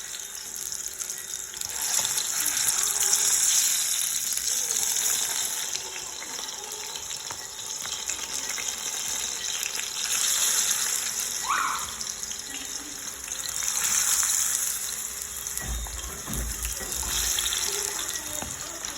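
Plantain slices frying in hot oil: a steady sizzle that swells and eases every few seconds, with a few dull bumps near the end.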